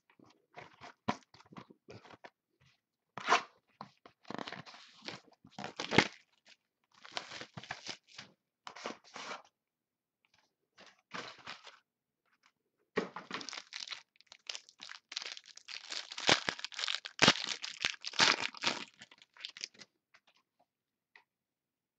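Hands tearing open and crinkling the wrapping and packaging of a sealed box of football trading cards: irregular bursts of ripping and crumpling, coming thickest in the second half.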